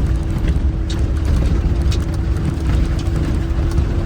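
Land Rover engine running steadily at low speed with a dense low rumble and a steady whine, as the truck crawls through a rock-bottomed stream crossing. Scattered short knocks and clicks sound throughout.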